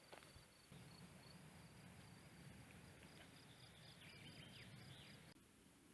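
Near silence: faint rural outdoor ambience with a thin, high, pulsing chirr that stops about five seconds in.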